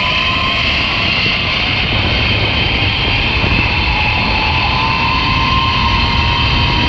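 Zipline trolley pulleys running along the steel cable at speed, giving a steady whine that creeps slightly up in pitch, over heavy wind rush on the camera microphone.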